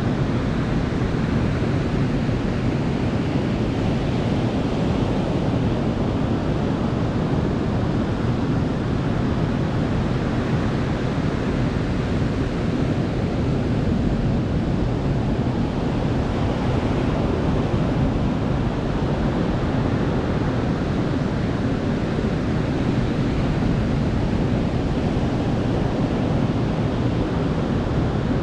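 Ocean waves breaking and washing on a beach: a steady, continuous surf noise, heaviest in the low range, with gentle swells as waves come in.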